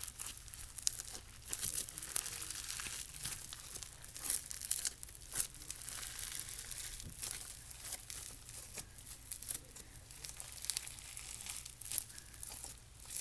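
Slushy slime made of clear glue and instant snow being kneaded and stretched by hand, giving a dense, irregular run of sticky crackles and pops.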